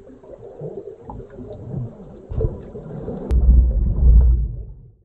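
Fishing boat at sea: engine and water noise, with wind buffeting the microphone in heavy low rumbles through the second half. The sound cuts off suddenly near the end.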